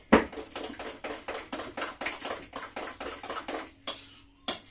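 A spoon stirring porridge oats in a ceramic bowl: a sharp knock against the bowl at the start, then quick, even scraping strokes, about five a second, and one more knock near the end.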